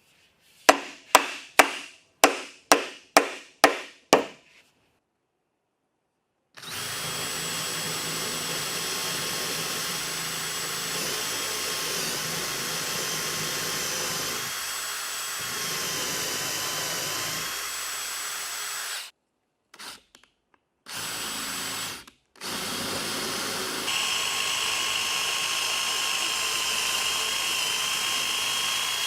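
About eight sharp knocks in quick succession, then an electric power tool running at a steady speed with a high whine. It cuts out briefly twice and restarts, running louder for the last few seconds.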